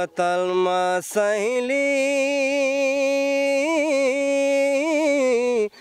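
A man singing unaccompanied: a short opening note, then one long held note with a slight waver in it, broken off just before the end.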